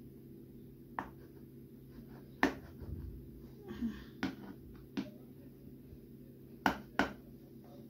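A kitchen knife cutting baklava dough in a metal baking tray: a handful of sharp, separate clicks and taps, about six spread over several seconds, as the blade meets the tray.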